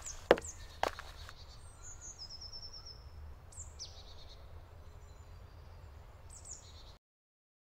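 Woodland birds calling: several short high chirping phrases, one a quick run of falling notes, over a faint outdoor background, with a few sharp clicks in the first second. The sound cuts to silence about seven seconds in.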